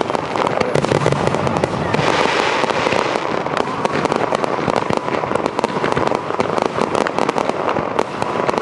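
Fireworks display: many overlapping bangs and crackles from bursting shells, going on without a pause.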